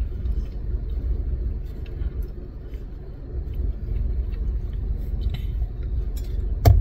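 Low, steady rumble inside a car's cabin, with a few faint clicks and one sharp thump near the end.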